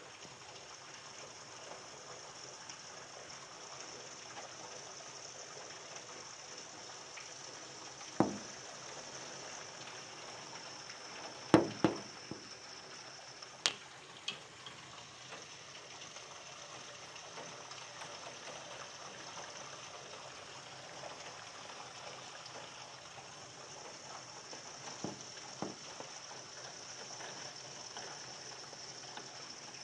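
Heavy rain pouring steadily, with water spilling off a leaking gutter. A few sharp knocks stand out, one about eight seconds in and a cluster around twelve to fourteen seconds in.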